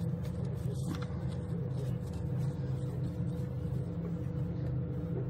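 Steady low hum of a running motor, holding one even pitch throughout with no starts, stops or knocks.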